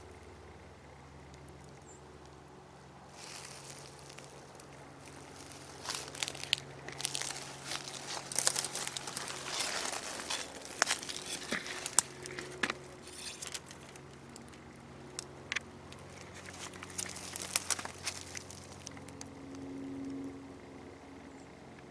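Irregular rustling and crackling with many sharp snaps and clicks, starting about three seconds in and dying away near the end, over a faint steady low hum.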